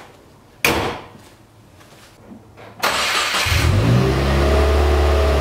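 Car hood slammed shut once, then a few seconds later the 2016 Subaru WRX's turbocharged 2.0-litre flat-four (FA20DIT) cranks briefly, catches with a rise in revs and settles into a steady idle.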